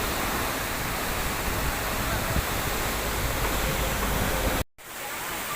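Waterfall pouring, a loud steady rush of falling water. It cuts out for an instant near the end, then comes back.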